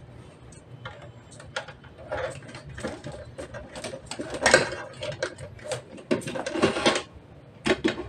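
Insulated electrical wires being fed through conduit into a metal switch box by hand: irregular scraping, rustling and small clicks, busiest in the second half.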